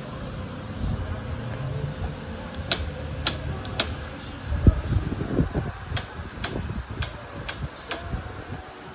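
A run of about eight sharp clicks over several seconds, with a louder dull thump near the middle, against a steady low hum.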